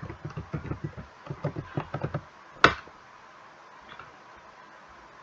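Typing on a computer keyboard: a quick run of keystrokes as a password is entered, then one sharper, louder click about two and a half seconds in.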